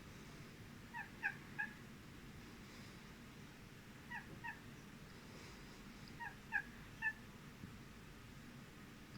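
Short chirping calls, each slightly falling in pitch, in three quick groups of two or three a few seconds apart, over a faint steady hum.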